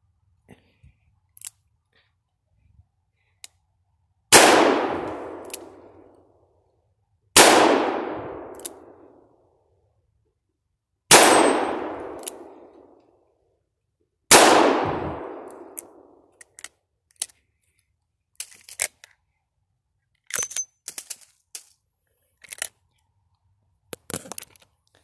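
Four shots from a Rossi M971 .357 Magnum revolver, about three to four seconds apart, each with a long echoing tail that dies away over about two seconds. In the last third, a run of light metallic clicks and rattles from handling the gun.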